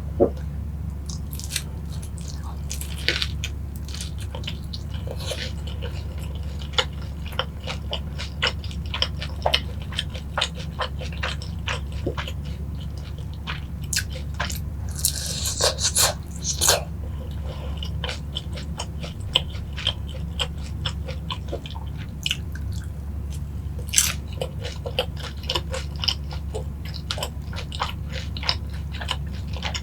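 Close-miked biting and chewing of crispy boneless fried chicken in sweet-spicy yangnyeom sauce: a run of sharp crunches, thickest about halfway through, over a steady low hum.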